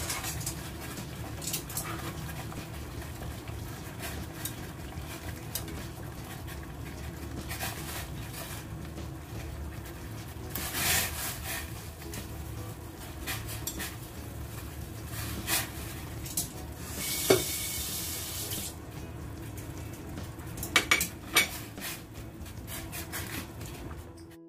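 Water at a rolling boil in a stainless steel pot as pork and chicken feet are dropped in to blanch, with a couple of louder splashes and metal tongs clinking against the pot, several times in quick succession near the end.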